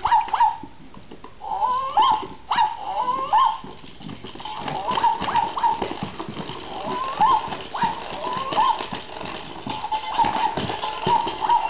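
A baby screaming in short, high-pitched squeals, over and over, each one bending up and down in pitch.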